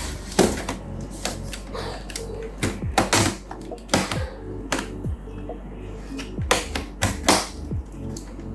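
Irregular sharp clicks and knocks of plastic as the casing of an HP 22 all-in-one PC is handled and pried open, about a dozen in a few seconds.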